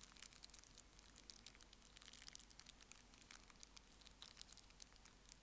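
Faint crinkling of a small crumpled wrapper being unwrapped by hand, a run of quick, irregular crackles.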